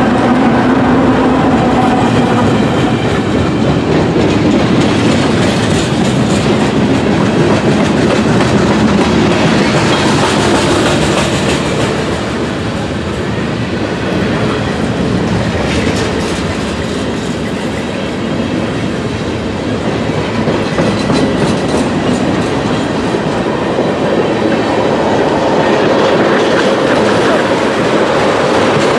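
Norfolk Southern freight train rolling past: the cars' steel wheels clack over rail joints in a steady, loud rumble.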